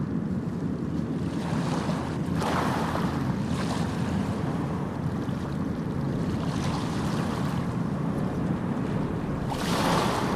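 Sea waves washing ashore over a constant low rumble of surf, with breaking waves hissing up about two seconds in, again around seven seconds, and most strongly near the end.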